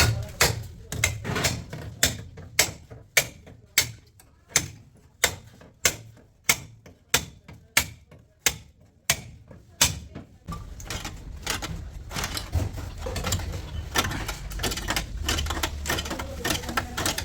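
A hammer striking sheet-metal car body panels, about two sharp blows a second. About ten seconds in, the blows give way to a busier run of clicks and knocks over a low hum.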